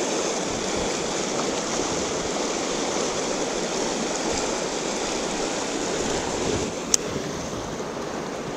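Fast mountain river rushing steadily over rocks, with a single sharp click about seven seconds in.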